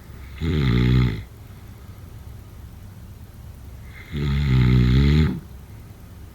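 Snoring: two snores, the first about half a second in and short, the second about four seconds in and a little longer, with a low steady background between them.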